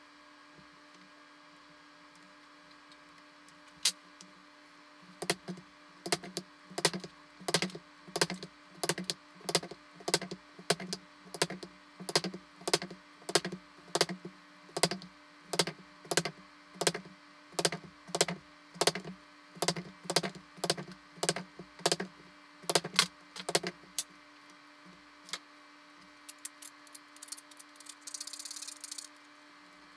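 A long run of sharp taps at a steady pace of about two a second, over a constant low hum, ending about three quarters of the way through. A short hiss comes near the end.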